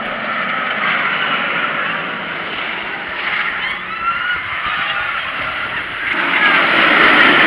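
Riders screaming on the Leviathan steel giga coaster as its train runs the course. The rush of the train and the screams swell about six seconds in.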